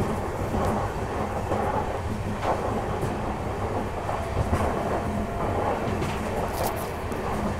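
Indian Railways sleeper-class coach running at speed, heard from its open doorway: a steady rumble of wheels on the rails with a few faint clicks over rail joints.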